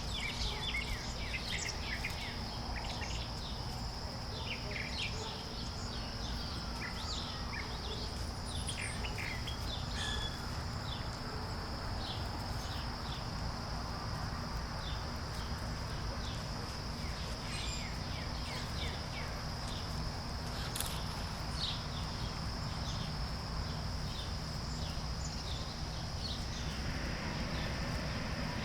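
Four-week-old puppies squeaking and whining in many short high calls, thickest in the first half, over a steady high-pitched hum and a low background rumble.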